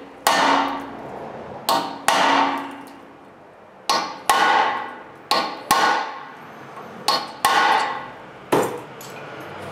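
Hammer striking a brass drift held against the Phillips retaining screws of a front brake rotor, about ten firm blows, many in quick pairs, each leaving the steel rotor ringing. The blows are meant to break loose screws that can be extremely tight.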